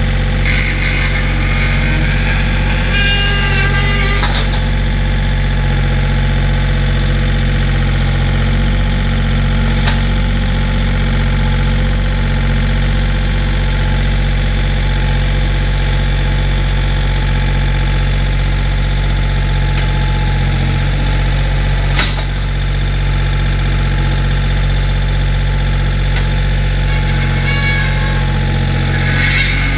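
Compact John Deere tractor's diesel engine running steadily as its front loader pushes a floating dock toward the water, with two sharp knocks about ten and twenty-two seconds in.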